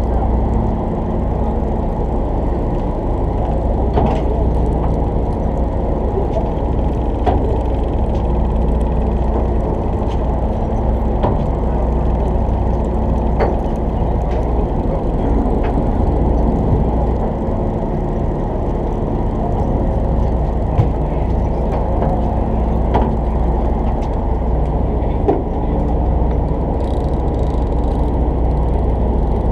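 Fishing boat's engine running steadily, a continuous low drone and rumble with a few faint clicks.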